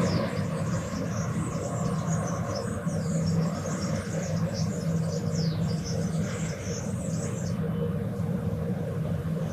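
Morning town ambience: a steady low rumble of distant traffic, with many small birds chirping and twittering high above it until about three quarters of the way through.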